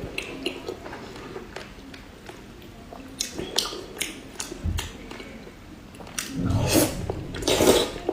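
Close-miked chewing and biting of pork belly: wet mouth smacks and sharp clicks, growing louder and fuller for a second or two near the end.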